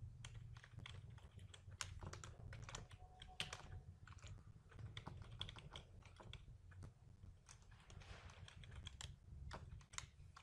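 Faint computer keyboard typing: irregular keystrokes and clicks throughout, over a low steady hum.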